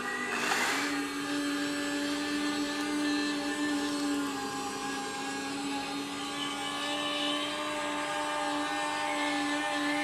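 Small electric motor and gearing of a radio-controlled model excavator whining at a steady pitch as the upper body slews round. A short hiss about half a second in.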